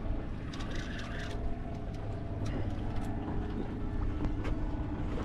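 Boat motor running steadily, a low rumble with a steady hum, and a few faint clicks over it.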